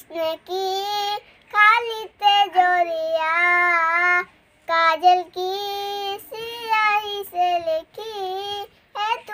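A young girl singing a Hindi love song unaccompanied, holding long steady notes in phrases separated by short breaths.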